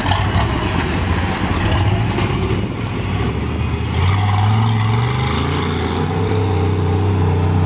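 Engine of a lifted pickup truck running as the truck drives into shallow river water. The engine revs up about three to four seconds in and holds the higher note.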